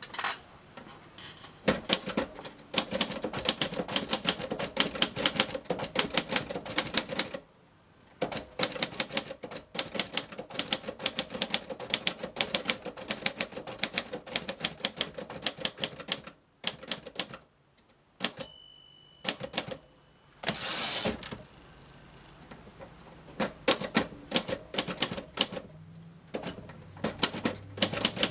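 Keys of a 1951 Royal Quiet De Luxe manual typewriter striking in quick runs, with a few short pauses. About two-thirds through, a brief ringing tone sounds, and a couple of seconds later a short rasping sweep: the margin bell and the carriage return. Then typing resumes.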